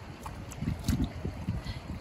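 Shallow seawater splashing as gloved hands grab stranded silver pomfret, with a few soft splashes around the middle. Low wind rumble on the microphone underneath.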